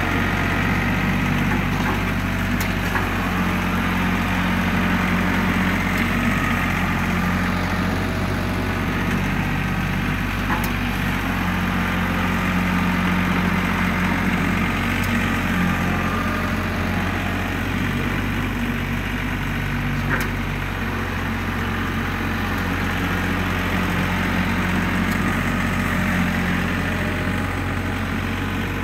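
An LS compact tractor's diesel engine running steadily as it drags a box blade across dirt, with a small dip in its note about twenty seconds in.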